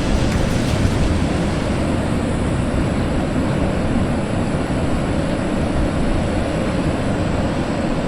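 Loud, steady wind buffeting the microphone while riding a bicycle along a dirt road.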